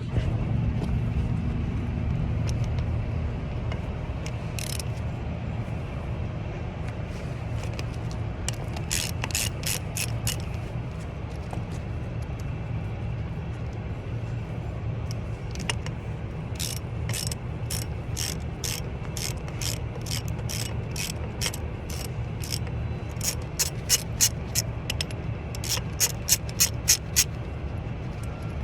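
Hand ratchet wrench clicking in quick runs of clicks as it works the terminal nuts off a Delco Remy 39MT starter solenoid: one run about a third of the way in, then repeated runs through the second half. A steady low rumble continues underneath.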